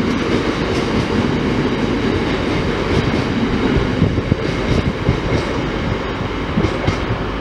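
Freight train of covered bogie hopper wagons passing close by at speed: a steady rumble of wheels on rails with clacks over the rail joints, easing slightly as the last wagon goes by.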